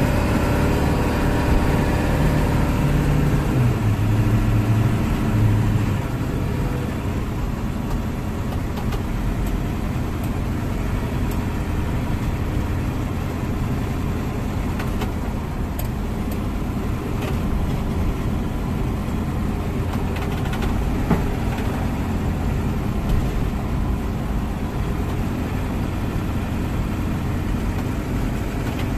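A car's engine and tyre noise heard from inside the cabin while driving. It is louder for the first six seconds, where the engine's note steps down a few times, then runs steady.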